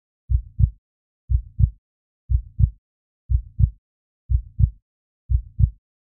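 Heartbeat sound effect: paired low thumps, one beat about every second, six beats in all, with dead silence between them.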